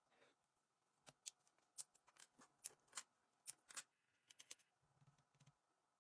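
A quick run of light, sharp metallic clicks and snips from small hand tools working on a wristwatch, about a dozen of them, starting about a second in and stopping near the end.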